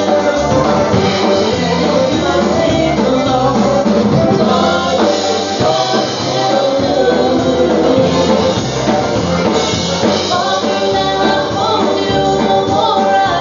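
Live polka band playing dance music, accordions over a steady drum-kit and bass beat, with some singing.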